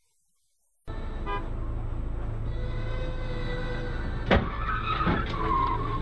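Near silence, then from about a second in the steady engine and road rumble of a car, heard from inside the cabin through a dashcam. Past the middle comes one loud sharp bang of a vehicle collision, a smaller thud a moment later, and then a high-pitched tone held for over a second.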